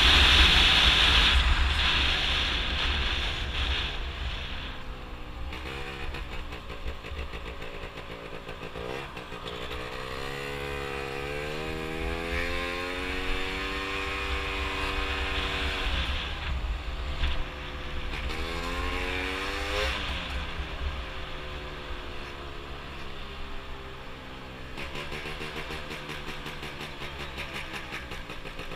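Gilera Runner scooter's two-stroke engine, fitted with a Malossi 172 cc kit, under way on the road, its note rising and falling several times as the throttle is opened and closed. The engine is loudest in the first few seconds, and a low wind rumble sits under it throughout.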